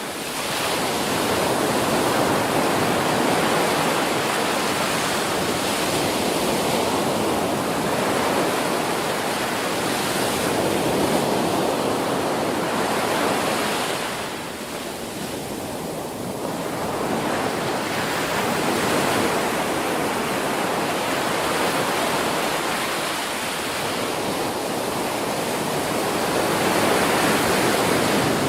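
Ocean surf: waves breaking and washing up on a beach in a steady rush that swells and eases slowly, easing most about 15 seconds in.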